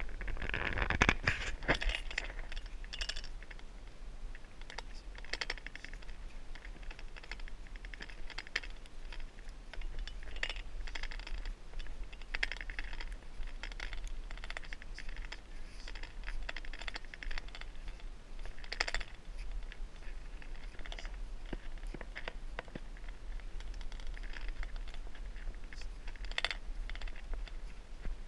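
Irregular scraping, crinkling and rustling from a handheld camera being carried while walking, with short scratchy sounds every second or two over a steady low hum.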